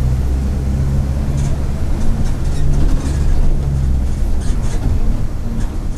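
Mercedes-Benz OF-1722M bus under way: a steady low engine and drivetrain drone that eases off about four seconds in, with scattered short rattles.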